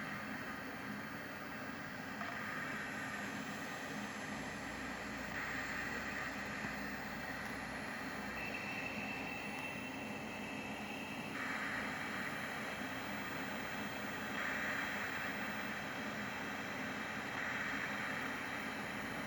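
Hard drive making a strange breathing noise: a steady hiss over a low hum, with a higher rushing sound that comes in and cuts off every few seconds, and a thin whistle for a few seconds around the middle.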